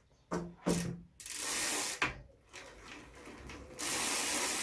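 A BMX bike's freewheel ratcheting, a dense run of fast clicks as the wheel or cranks spin, fading for a moment then picking up again near the end, after the new pedals have been fitted.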